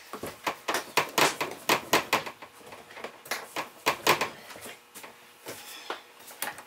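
Floating vinyl floor planks knocking and clicking against each other and the floor as they are handled and worked into place. There is a quick irregular run of sharp clicks for the first two seconds, another cluster about three to four seconds in, then scattered knocks.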